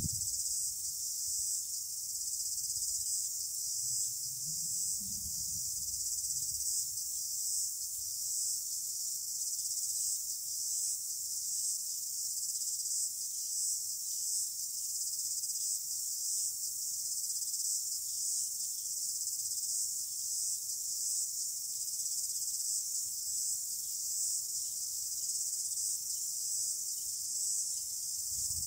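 Steady, high-pitched chorus of insects, unbroken throughout, with a brief low rumble about four seconds in.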